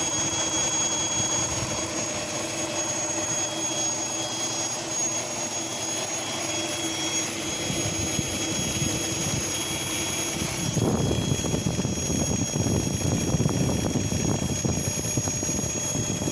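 Engine running steadily with a high hiss and thin whistling tones over it, which the owner suspects may be a vacuum leak. About two thirds of the way through, the whistle fades and a rougher low rumble grows louder.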